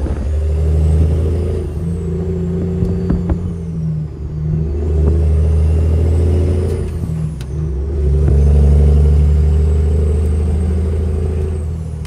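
Old Detroit Diesel truck engine pulling on the highway, heard from inside the cab. Its steady note twice dips briefly and picks back up, with a thin high whine rising and falling above it.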